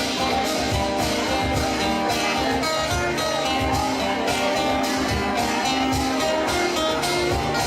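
Live rock band playing an instrumental passage: guitar over drums, with a steady beat.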